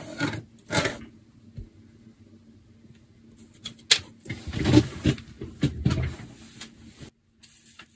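Handling noises on a desk: a few sharp clicks and knocks and a stretch of rustling as a pixel-LED strip is slid out of its glass tube and the two are laid down on paper. A faint steady hum runs underneath and stops shortly before the end.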